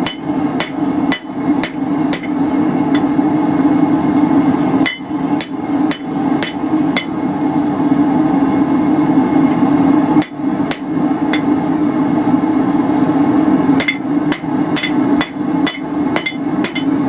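Hand hammer striking a hot railroad spike on the anvil as it is bent into a curve, in runs of quick blows about two a second with pauses between the runs. A steady low hum runs underneath.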